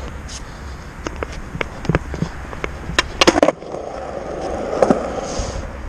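Skateboard rolling, its wheels giving a steady rumble with scattered clicks. About three seconds in comes a quick cluster of sharp clacks, and after it the rolling carries on with a different tone.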